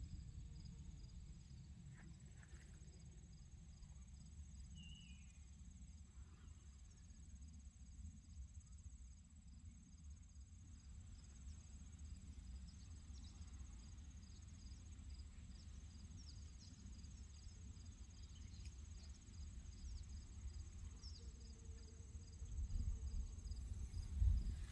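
Faint, steady insect trilling: a continuous high whine with soft chirps repeating at an even pace, over a low rumble on the microphone that grows louder near the end.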